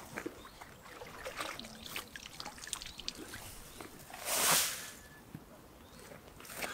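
Water trickling and dripping in small scattered drops and splashes at the pond's edge as a landed carp is released back into the water. About four and a half seconds in there is one louder, brief watery swish.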